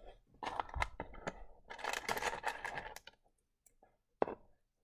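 Pieces of rough Lightning Ridge opal clicking and scraping against each other and the tray as fingers pick through them, with a run of rattling over the first three seconds and a single sharper click about four seconds in.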